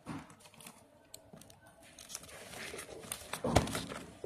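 Crinkling and rustling of a printed label sheet as it is wrapped around a cardboard fireworks cake box, with scattered small taps and one louder knock about three and a half seconds in.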